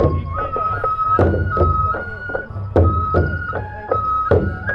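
Japanese festival procession music: a flute plays a melody of held notes stepping up and down, over drum strikes that fall every second or so.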